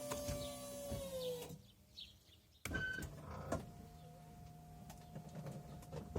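RV slide-out room's electric motor running with a steady whine, dipping in pitch as it stops about a second and a half in when the slide reaches the end of its travel. A knock follows, then a slide motor starts again with a steady, slightly higher whine from about three and a half seconds in.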